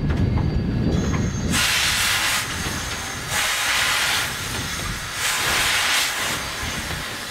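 Narrow-gauge steam locomotive letting off steam in three loud hisses of about a second each, after a low rumble at the start.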